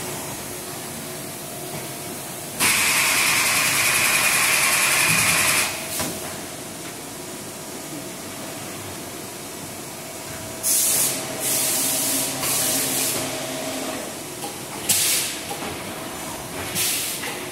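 Automated CNC lathe cell (Doosan Lynx 235 with gantry loader) running with a steady machine hum. Loud hissing blasts of compressed air break in: one lasting about three seconds, then several shorter ones about halfway, and two brief ones near the end.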